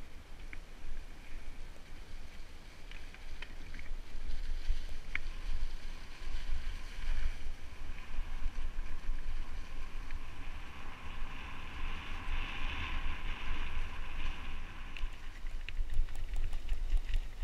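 Mountain bike rolling fast down a singletrack of dry fallen leaves and loose stones: steady tyre noise over the leaves with low wind rumble on the microphone, swelling for a few seconds past the middle. Scattered sharp clicks and knocks from the bike over stones, more of them near the end as the trail turns rocky.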